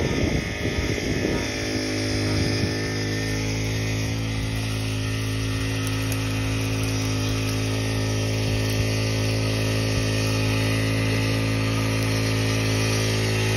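Winch motor running at a steady pitch as it hauls a wild boar carcass up through the brush. Rough, uneven rustling gives way to the even drone about a second and a half in.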